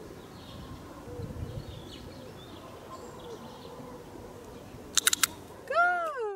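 Quiet outdoor background with faint bird calls. About five seconds in come three quick sharp clicks, then a short high call that rises and falls in pitch, and the sound cuts off.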